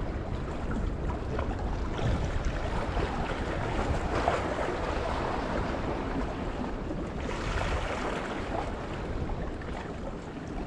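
Wind buffeting the microphone over the wash of small sea waves against shore rocks, a steady rushing noise that swells around four seconds in and again near seven.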